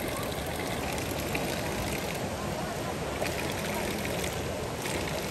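Fast mountain river rushing over stones: a steady, even rush of water.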